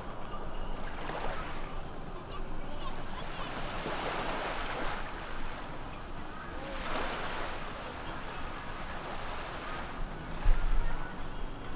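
Sea waves breaking and washing up the shore, surging and fading every two to three seconds. A brief low thump about ten seconds in.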